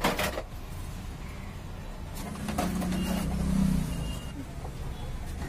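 Steady low rumble of vehicle traffic, with a louder vehicle hum swelling and fading between about two and four seconds in. A sharp click comes right at the start.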